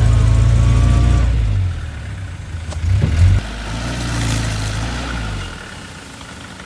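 Engine of a 1972 Mitsubishi Willys jeep running loud and low, dropping off about a second and a half in. A brief surge around three seconds in, then the engine runs again before falling away near the end.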